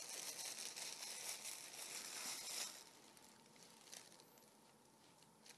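Plastic food packaging rustling and crinkling for about two and a half seconds, then quieter handling with a faint tap.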